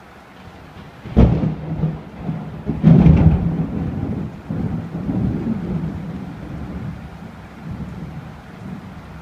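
Close thunder: a sharp crack about a second in, a second, louder crash about two seconds later, then a long rolling rumble that slowly dies away.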